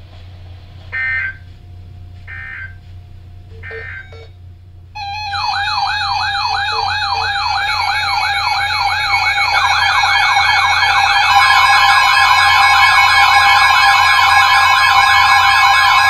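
Three short bursts of EAS SAME header data tones, then, about five seconds in, a bank of NOAA weather radios set off their alert alarms together for a Special Marine Warning: several warbling electronic sirens and steady beeping tones layered on one another, growing louder as more units join, with a steady warning tone added near the end.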